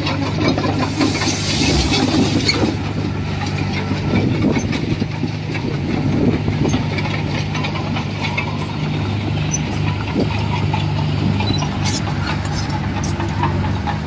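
Komatsu bulldozer's diesel engine running steadily, with scattered short knocks and clanks.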